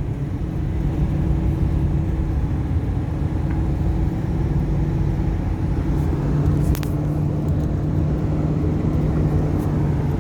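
Engine and road noise inside a moving 2014 Ford Econoline E-250 van: a steady low drone with an even hum, and one short sharp tick about two-thirds of the way through.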